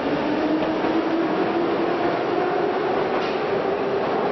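Metro train running along the platform: a steady rumbling noise with an electric whine that rises slowly in pitch as the train gathers speed.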